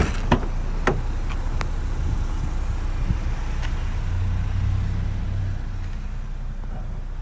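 Rear door of a 2016 Chevrolet Equinox being opened by its outside handle: the loudest click of the latch releasing at the start, then a few more clicks and knocks of the door swinging open. A low steady rumble lies under it all, with a low hum swelling for about a second and a half past the middle.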